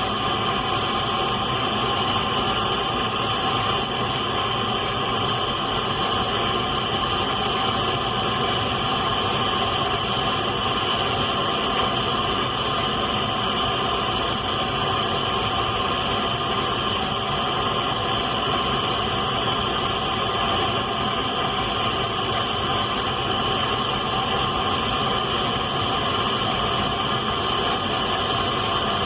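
Radio static: a steady hiss with faint steady tones running through it.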